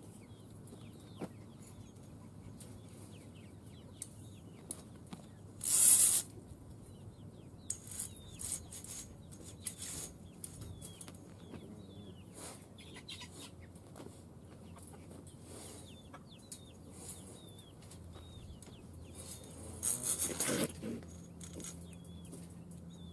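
Chickens clucking with many short chirping calls, broken by two loud, short noisy bursts, one about six seconds in and one near the end, from the raccoon or its wire cage trap as it is prodded with a pole.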